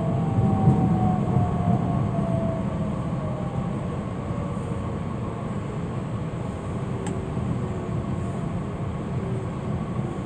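Interior running sound of a DB Class 442 (Bombardier Talent 2) electric multiple unit: low rolling rumble with a thin electric traction-motor whine that falls in pitch as the train slows, the overall sound easing off gradually.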